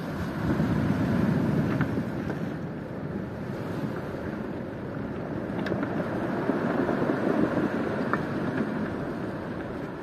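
Surf breaking and washing up over a pebble shore, swelling loudest about a second in and again around seven seconds. Wind buffets the microphone.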